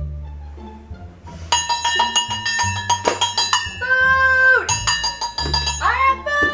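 Background music: low plucked bass notes, joined about a second and a half in by a quick run of bell-like ringing strikes. Two drawn-out calls that bend in pitch come about four seconds in and near the end.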